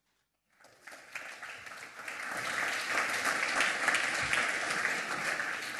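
Audience applauding after a brief silence. The clapping builds over a couple of seconds, then holds steady and eases a little near the end.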